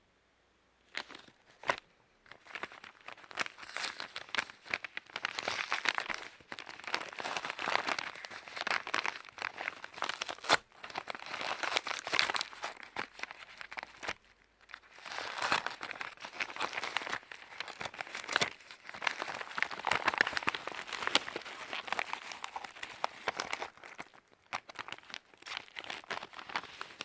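Packaging of a music album crinkling and tearing as it is unwrapped by hand: irregular crackles and clicks, with short pauses.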